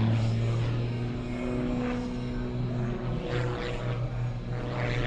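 Single-engine propeller aerobatic plane flying its display routine, its engine and propeller giving a steady drone with brief rushing swells about three and five seconds in.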